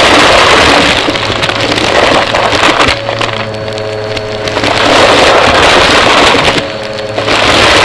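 Vacuum cleaner running close to the microphone, its rush of air swelling and easing with back-and-forth strokes. In the quieter dips, about three seconds in and again near the end, a steady motor whine shows through.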